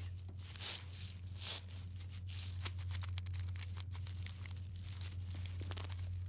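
Faint rustling and crackling, irregular and strongest about half a second and a second and a half in, over a steady low hum.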